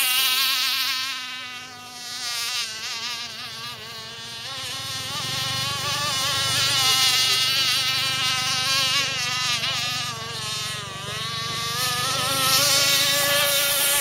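RC racing boat's small high-revving engine, a buzzing whine that runs continuously, its pitch wavering up and down with the throttle. The sound fades twice and swells again as the boat runs laps of the oval.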